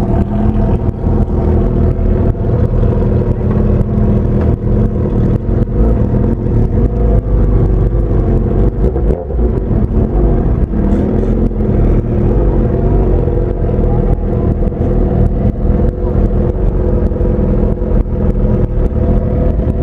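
Motorcycle engine running steadily at low revs as the bike rolls slowly, heard close up from a camera mounted on the bike, with a strong low rumble.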